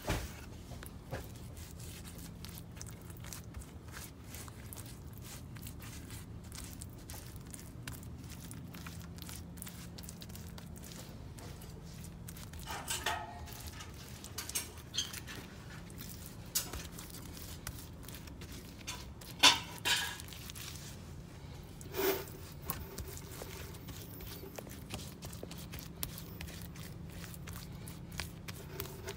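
Wet Ultracal 30 gypsum cement being dabbed and spread over a sculpture as a mold's beauty coat: many soft wet clicks and smacks, with a few louder knocks in the middle and later on, over a steady low hum.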